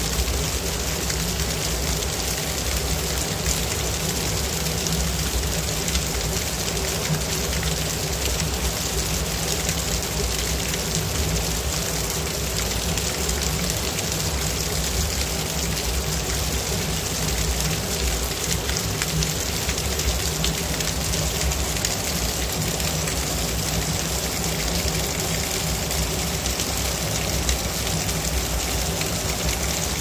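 Small waterfall splashing steadily as two thin streams of water fall onto wet rocks.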